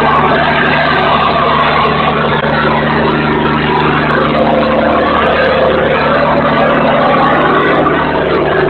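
Diesel generator sets running on test: a loud, steady engine noise with a constant low hum underneath.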